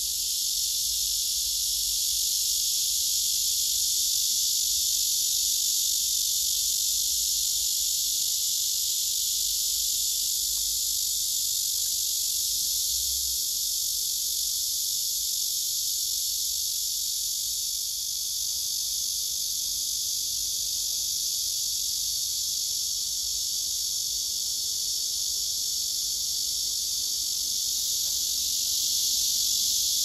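Male cicadas singing: one steady, unbroken high-pitched buzz.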